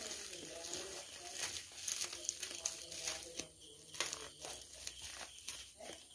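Plastic bubble-wrap package crinkling and crackling in the hands as it is turned over and picked open, in irregular bursts.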